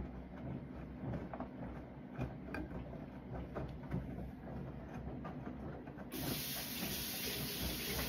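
Siemens front-loading washing machine tumbling wet laundry in its drum: low rumbling with water sloshing and small knocks as the load falls. About six seconds in, a steady hiss of running water starts.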